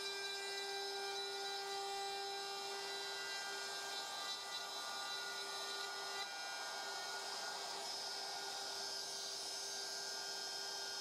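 DeWALT DCW600 cordless compact router in a plunge base, running steadily with a high-pitched motor whine while cutting into wood, a rough cutting hiss beneath the whine.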